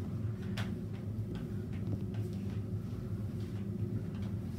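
Steady low hum with a few faint, scattered taps as a mop is worked across a tiled floor.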